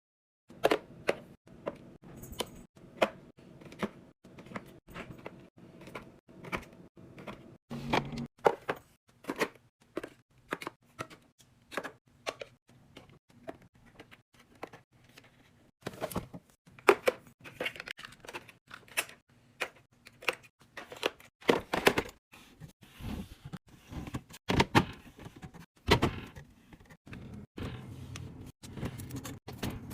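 Items and containers being handled and set down while restocking a refrigerator: a busy run of irregular clicks, taps and knocks, with a faint low hum underneath.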